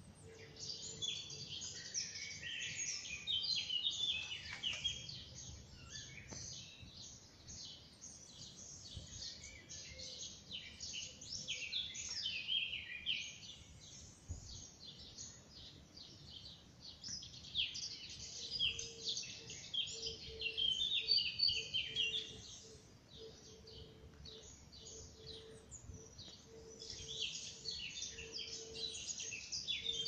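Morning chorus of many songbirds: dense, overlapping high-pitched chirps and song phrases that swell and thin in waves, thickest in the first few seconds, around the middle, and again toward the end.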